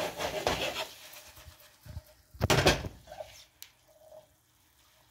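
Plastic spatula scraping and knocking against a frying pan while cooked ground beef is stirred and chopped up, in a few short bursts, the loudest about two and a half seconds in, then a single click.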